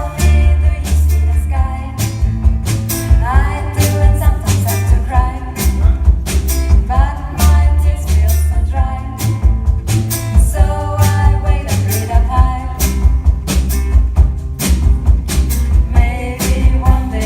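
A band playing a song with a singer over a steady drum beat and heavy bass.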